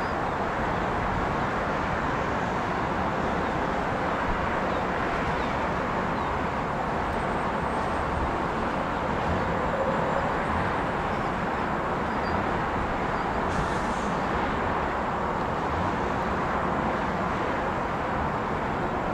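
Steady engine noise at an airport, an even rush with no rise or fall in level.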